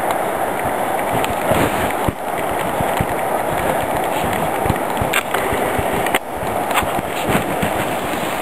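Flood-swollen stream rushing over a broad gravel and cobble bed, a steady rush of water, with a few short knocks now and then.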